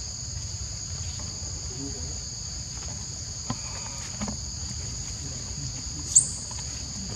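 A steady high-pitched insect chorus with a low background rumble, and a short sharp rising squeak about six seconds in.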